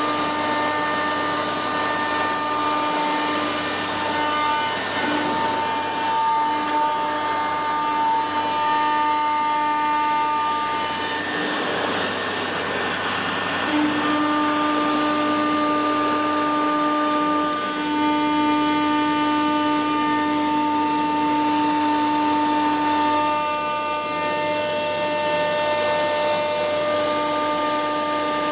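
CNC router spindle milling 15 mm thick aluminium with a spiral cutter. It gives a steady machine whine made of several held tones that fade and come back as the cutter moves through the cut, with a rougher, noisier stretch about twelve seconds in.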